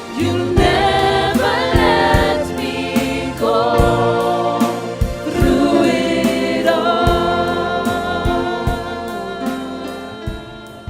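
Gospel worship song sung by a choir with a band and a steady drum beat, fading out near the end.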